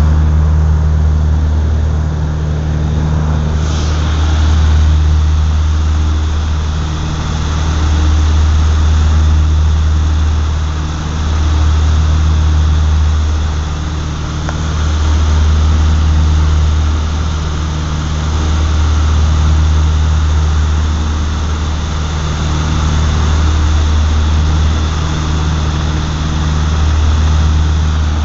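Cabin drone of a twin-engine propeller plane's engines and propellers in cruise, a steady low hum. The hum swells and fades about every three and a half seconds, the beat of the two propellers turning slightly out of sync.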